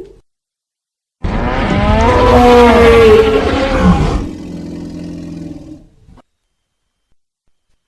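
Triceratops creature sound effect mixed from animal calls: one long loud call with a wavering pitch, starting a little over a second in and lasting about three seconds. It drops to a quieter, steadier low tone that stops abruptly about six seconds in.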